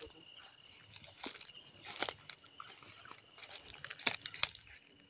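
Crackling rustles of dry grass and leaves being brushed through, with several sharp crunches; the loudest comes near the end. Under them runs the steady high chirring of night insects.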